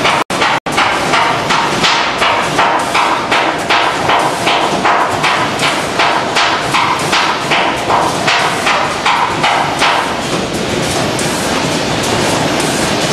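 Automatic vertical bagging machines running, with a rhythmic clacking of about three strokes a second. Near the end the clacking fades and a steady machine noise remains.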